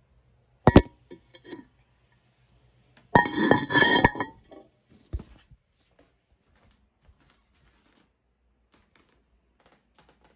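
Porcelain of a toilet clinking: a sharp ringing clink under a second in, then about a second of louder rattling clatter about three seconds in, followed by a few faint knocks.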